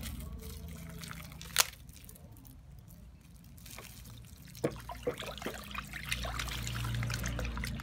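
SLS (sodium lauryl sulfate) granules poured from a bag into a plastic bucket of water, trickling in while a wooden stick stirs, getting louder toward the end. A sharp knock about a second and a half in, and a few lighter knocks later.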